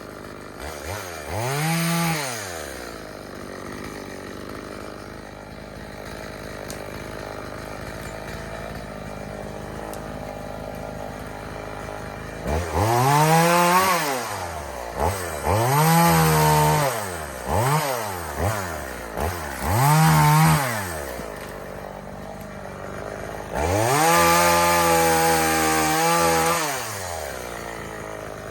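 Two-stroke EFCO chainsaw idling between throttle runs. It revs up and back down about two seconds in, several times in quick succession from about 12 to 21 seconds, and is held high for about three seconds near the end.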